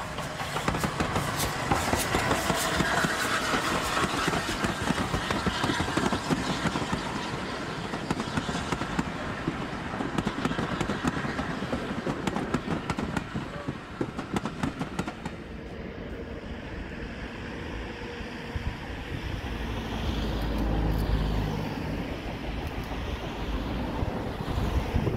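Steam-hauled train running, the LNER A3 Pacific locomotive Flying Scotsman pulling its carriages, with the carriages clattering over the rails. About halfway through the sound drops to a quieter, more distant rumble.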